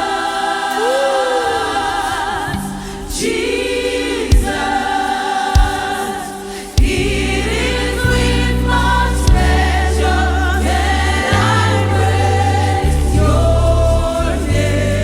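Gospel choir singing a slow worship song in harmony, with a few sharp drum hits; about seven seconds in, a bass line and fuller band accompaniment come in under the voices.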